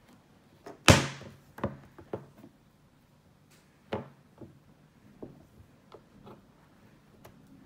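Plastic knitting loom and loom hook knocking and clicking on a tabletop as yarn is worked around the pegs: one sharp knock about a second in, then a few lighter clicks.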